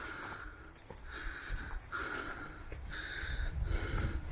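Heavy breathing close to the microphone, a breathy hiss a little under once a second.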